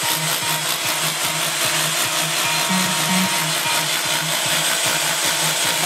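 Handheld power tool running against a stone wall, a steady dense grinding noise.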